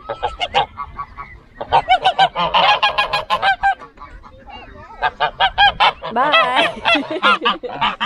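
Several Embden geese honking, in quick overlapping runs of calls. The calls come in two busy stretches, in the middle and the second half.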